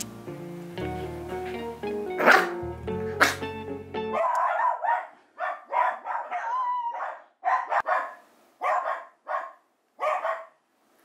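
Background music for about four seconds, then a mixed-breed puppy barking: about ten short, high-pitched barks with a brief whine in the middle.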